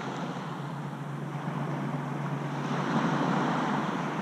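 Surf breaking and washing up a sandy beach, one wave surging loudest about three seconds in. A steady low hum runs underneath.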